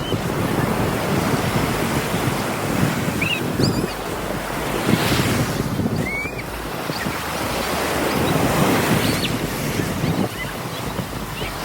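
Ocean surf and wind on the microphone, a loud rushing noise that swells and eases every few seconds, with a few faint short high chirps.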